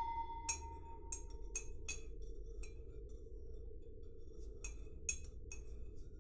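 Faint, irregular light clinks and ticks, about nine in six seconds, with a short ring to each, over a low steady room hum. A held tone left over from music fades out in the first two seconds.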